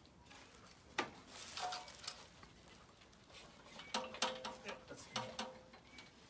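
Scattered metallic clinks and knocks as a V8 engine is worked into place: a sharp knock about a second in, then clusters of clinks, one group with a brief ringing tone.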